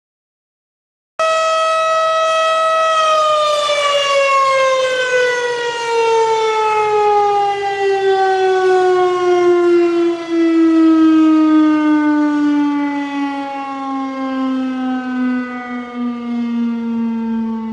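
Synthesized single-tone warning siren: after about a second of silence it cuts in at full pitch, holds a steady tone for about two seconds, then winds down, its pitch falling slowly and still sounding at the end.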